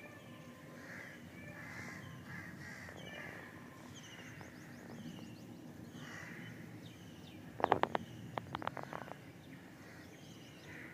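Crows cawing again and again, with smaller birds chirping high and short. About three quarters of the way in comes a quick run of sharp clicks or knocks, the loudest sound.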